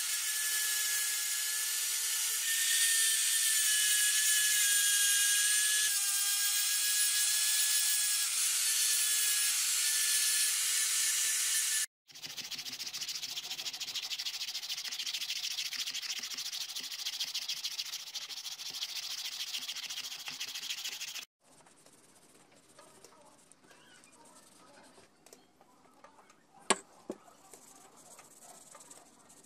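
Electric angle grinder with a sanding disc running against a wooden sword grip: a steady motor whine over the hiss of abrasive on wood. After a cut, the grip is sanded by hand, a dense gritty rubbing. After a second cut comes faint rubbing of a rag as finish is wiped onto the wood, with one sharp click near the end.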